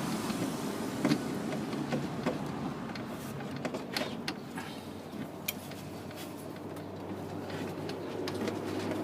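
Scattered metal clinks, knocks and scrapes of hand tools and parts being worked loose in an engine bay, over a steady low hum.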